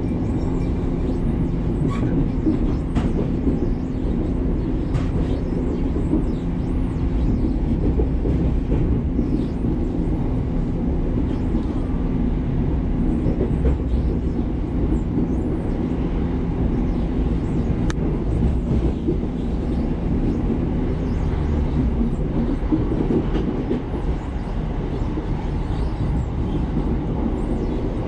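Passenger train running at speed, heard from inside the carriage: a steady rumble of wheels on the rails with a low hum underneath and a few sharp clicks.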